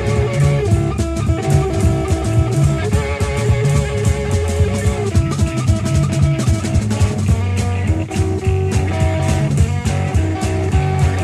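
Electric blues band playing an instrumental passage with no vocals: electric guitar playing held notes over a steadily hit drum kit.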